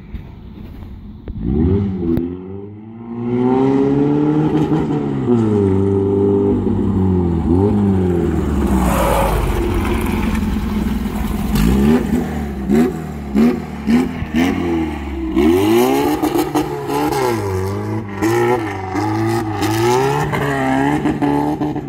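Volkswagen Beetle 1200cc air-cooled flat-four revving hard as the car approaches and passes, its pitch climbing and falling through long pulls. Later come many quick revs up and down, with short drops in power, as the car slides across the grass.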